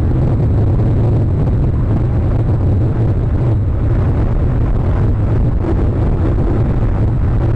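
Wind blowing across an outdoor camera microphone: a steady, loud low rumble with no bird calls.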